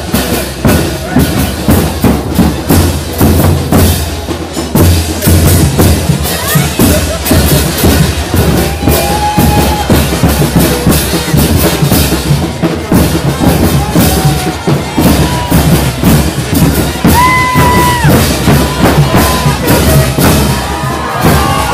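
Music with a steady drumbeat and bass drum, and a brief held high note about seventeen seconds in.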